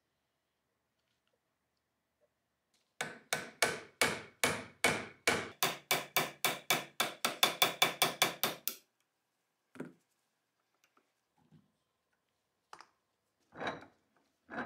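Small hammer tapping a punch against the steel toggle assembly of a Luger P08 pistol, about two dozen quick, even metallic taps at four or five a second with a short ring to each. A few scattered clicks of parts being handled follow near the end.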